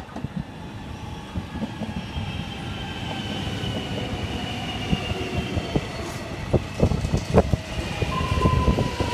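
X'Trapolis 100 electric suburban train running in along the platform as it slows, its rumble growing louder. A motor whine falls slowly in pitch, and a second, lower whine comes in near the end. The wheels knock over rail joints in a quick cluster a little past the middle.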